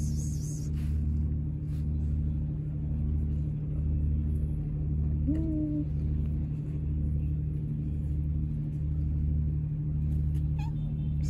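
Tabby stray cat purring close up while its head and chin are stroked, a steady low purr that swells and fades about once a second with its breathing. A single short rising chirp comes about halfway through.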